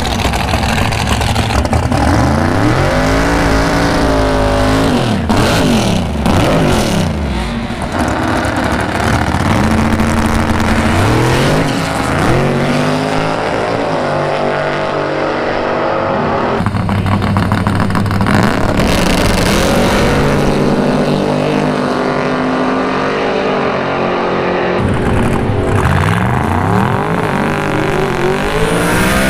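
Loud drag race car engines revving and launching hard, one run after another, each sweeping steeply up in pitch and dropping back.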